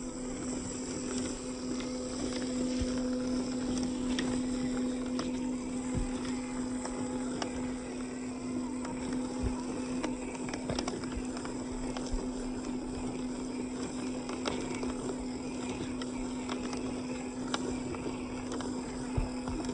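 Steady hum of a small motor, most likely the electric motor of a radio-controlled off-road car, with scattered short clicks and knocks over it.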